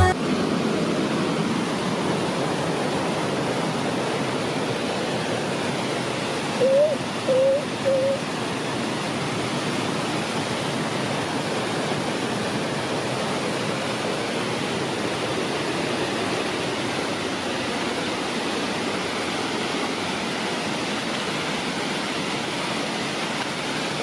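Steady rushing noise of water pouring down a large waterfall, with a few short calls about seven seconds in.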